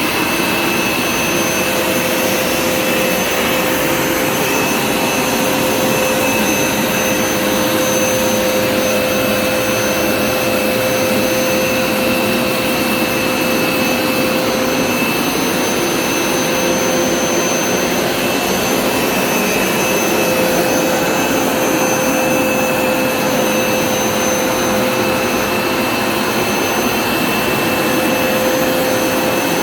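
Hoover Smartwash Pet Complete carpet cleaner running steadily as it washes and extracts a carpet: a constant motor drone with a high, steady whine over it.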